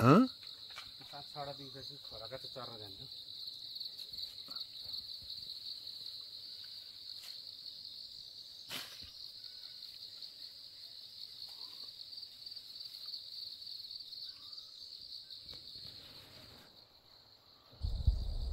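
A steady, high-pitched insect chorus, opened by a short rising call and a few seconds of voices. The chorus fades about two seconds before the end, and a loud low rumble comes in just before the end.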